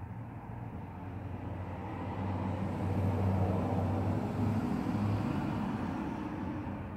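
A vehicle passing by: a low engine hum with road noise that swells to a peak about three seconds in and then fades away.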